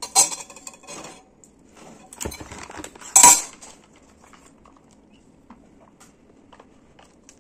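Clinking of a metal spoon against a ceramic noodle bowl in the first second, then more clatter and a short, loud rustling burst about three seconds in as a plastic cup of milk tea is lifted and shaken; only faint small ticks follow as the drink is sipped through a straw.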